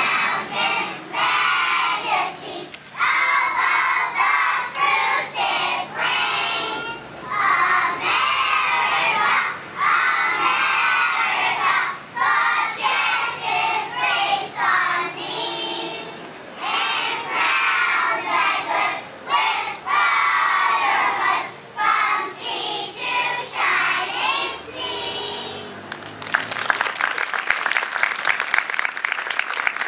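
A group of young children singing together, then applause breaking out near the end.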